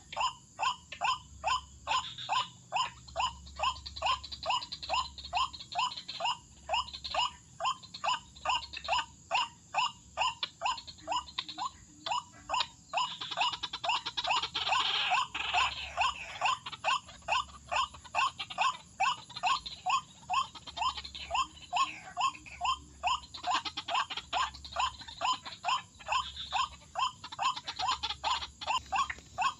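White-breasted waterhen (ruak-ruak) calling: a short, slightly rising note repeated steadily about two to three times a second, with a harsher, noisier burst of calling around the middle.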